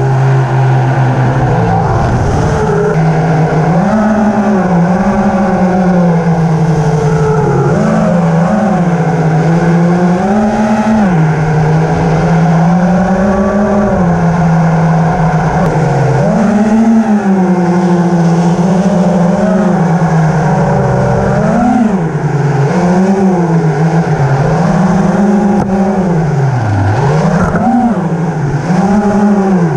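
Drone's motors and propellers whining, heard from its on-board camera. The pitch rises and falls every second or two as the throttle changes in flight.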